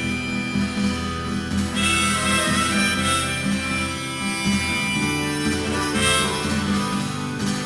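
Live band music, the song's instrumental opening: a harmonica melody over guitar and a steady pulsing rhythm, with no singing yet.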